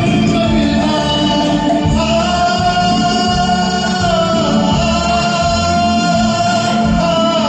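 A man singing a Hindi film song over a karaoke backing track, in long held notes.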